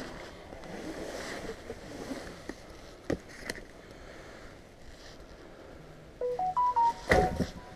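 Clutter being handled: rustling with a couple of light knocks, then near the end a short run of electronic beeps stepping up and down in pitch, overlapped by a sharp knock.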